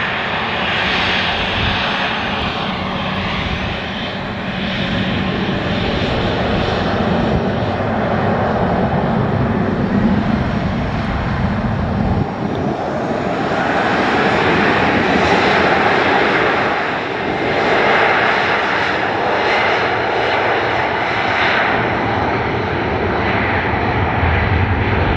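Jet airliner's engines at takeoff power during its takeoff run, a loud steady noise. About halfway through, the deep rumble gives way to a higher, hissing sound.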